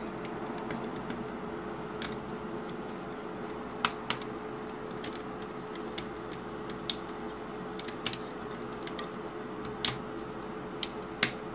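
Small plastic clicks and taps, scattered irregularly with a couple in quick pairs, as the LCD display glass is worked back into a VW Fox instrument cluster's plastic housing and its catches are pulled back. A faint steady hum lies underneath.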